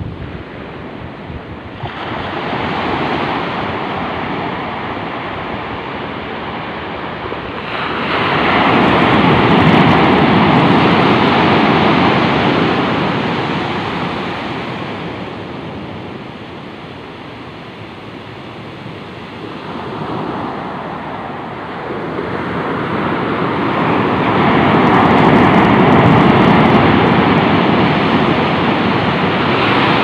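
Surf breaking on a sandy beach: a steady wash of water that swells into louder crashes about ten seconds in and again from about twenty-five seconds in.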